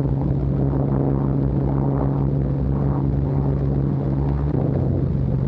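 Short Stirling heavy bomber's four piston engines droning steadily in flight: a deep, even hum.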